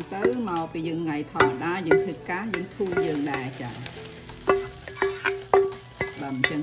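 Food being stirred and fried in a pan, sizzling, with a spatula scraping and knocking against the pan. A melody with pitched notes plays over it.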